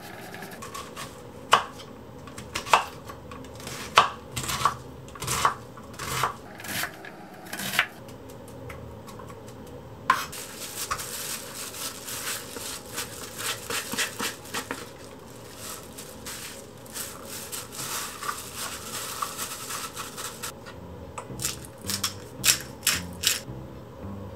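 Chef's knife cutting an onion on an end-grain wooden cutting board, the blade knocking against the board about once a second for the first several seconds. Then comes a longer stretch of denser rustling and scraping, and a few more sharp clicks near the end.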